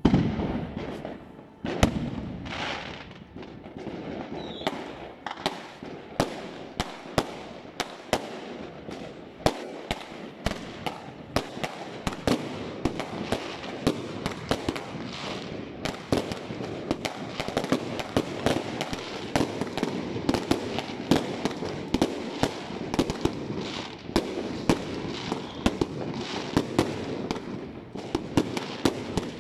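Many fireworks going off at once: a sudden loud volley of bangs at the start, then a steady barrage of overlapping bangs and crackling, several a second, from aerial shells bursting overhead.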